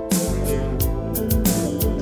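Background music with a steady beat: sustained pitched instruments over regular drum hits.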